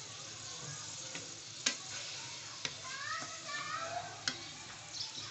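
Chopped onion and garlic sizzling in hot oil in a metal karahi while a wooden spatula stirs them, with three sharp knocks of the spatula against the pan about a second apart.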